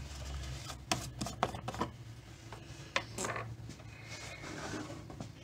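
Plastic oil funnel being handled and seated in an engine's oil filler neck: a few sharp clicks and knocks of plastic on plastic, clustered about a second in and again near three seconds.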